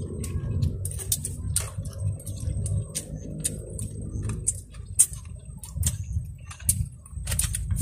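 Irregular small clicks and crackles over a steady low rumble, with a faint high steady tone throughout.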